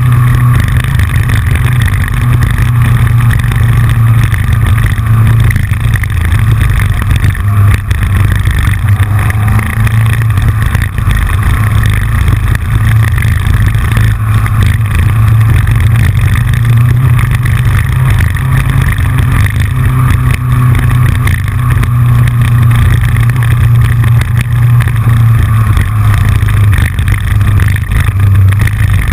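Yamaha FJR sport-touring motorcycle's inline-four running steadily at road speed, a loud low drone with rushing noise over it, picked up by a camera on the front fairing. A clicking from the loosely mounted camera rides along with it.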